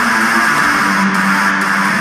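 Guitar-driven music playing over an arena's public-address system, with sustained bass notes that change about once a second.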